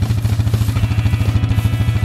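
Vehicle engine idling steadily with a fast, even throb.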